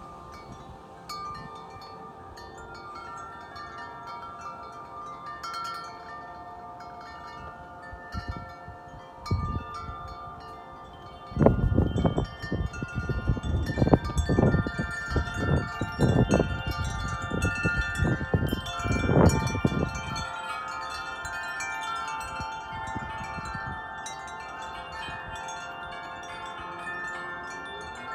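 Wind chimes ringing continuously in gusty wind, many tones overlapping. From about eleven to twenty seconds in, a strong gust sets them clanging harder and rumbles loudly on the microphone.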